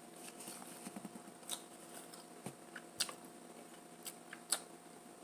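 Close-miked mouth sounds of a person eating: soft chewing with scattered sharp lip and tongue clicks and smacks, the loudest about 3 and 4.5 seconds in.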